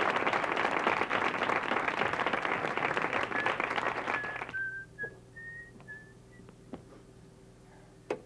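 Studio audience applauding, with whistling on top. The applause stops about four and a half seconds in, and someone whistles a short run of notes. Near the end a single sharp click comes from a button pressed on a tabletop answering machine.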